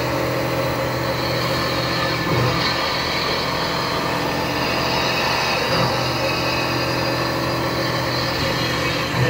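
Macpower V1366 vertical machining center milling a metal plate: the spindle and cutter give a steady cutting tone under the hiss of flood coolant, with a brief swell about every three and a half seconds.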